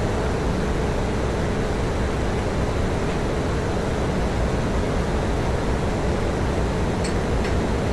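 Steady, loud machinery noise of a ship's engine room, with running engines and pumps making a constant deep rumble. A couple of faint clicks come near the end.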